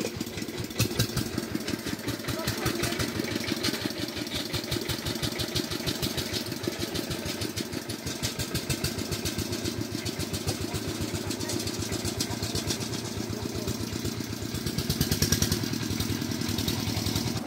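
Single-cylinder diesel engine of a two-wheel walking tractor running steadily with a rapid, even chugging beat, swelling a little louder near the end.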